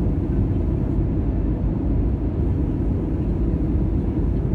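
Steady cabin noise inside an Airbus A320 on its approach to land: a low, even rumble of the jet engines and the airflow past the fuselage.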